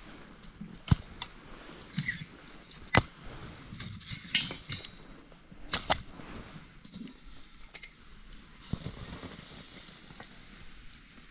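Metal pot lid clanking against a cooking pot on a campfire: a few sharp knocks spread over the first six seconds. Near the end a steady hiss comes from the uncovered, steaming pot.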